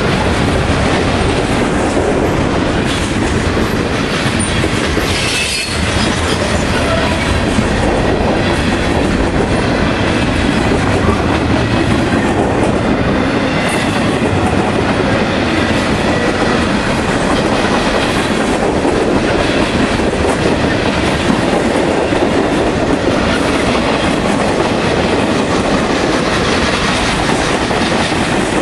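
Loud, steady rolling noise of a manifest freight train's steel wheels on the rails as the cars pass close by.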